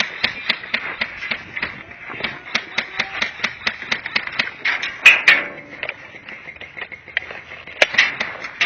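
Airsoft guns firing: a steady run of sharp snaps, several a second, with a louder shot about five seconds in and another near the end.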